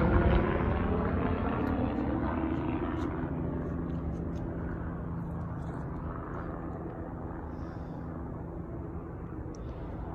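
An aircraft flying over, its engine drone loudest at the start and slowly fading away, with a few faint clicks above it.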